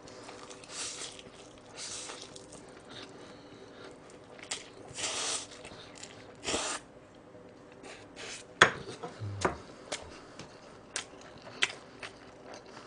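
Paldo Bibimmyeon cold spicy noodles being slurped in several short hissing pulls, the longest about five seconds in, then wet chewing with sharp lip smacks and clicks in the second half.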